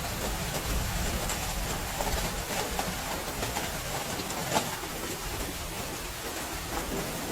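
Heavy rain falling steadily, with scattered louder drops ticking through it; one sharper drop stands out about halfway through.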